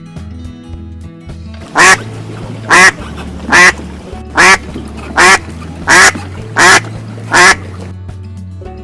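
A duck quacking: eight loud quacks, about one every 0.8 seconds, starting about two seconds in, over background music with a steady beat.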